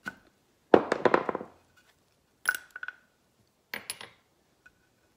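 Small steel engine parts clinking as an LS rocker arm, its pressed-out trunnion and old needle bearings are handled and set down on a steel bench vise and wood block. A clattering rattle comes about a second in, followed by two sharp metallic clinks that ring briefly.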